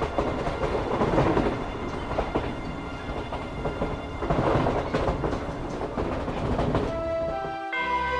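A steady rushing, rumbling noise with a few faint held tones beneath it. About seven and a half seconds in it cuts off and soft sustained music takes over.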